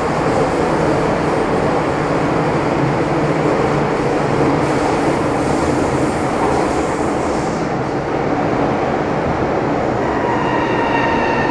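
Steady running noise of an MTR Metro Cammell M-Train (GEC GTO chopper EMU) heard from inside the car in a tunnel: wheels on rail and traction equipment. Near the end, a set of steady whining tones from the chopper traction equipment comes in.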